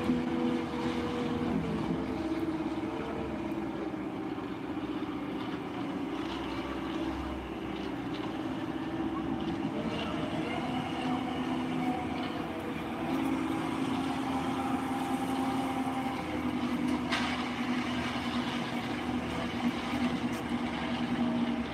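Diesel engine of a self-loading concrete mixer truck running under load, a steady drone whose pitch shifts up and down a few times as it works. A single sharp click sounds near the end.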